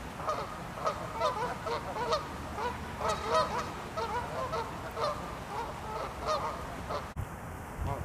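A flock of Canada geese honking: many short, overlapping honks in quick succession, with a brief break about seven seconds in.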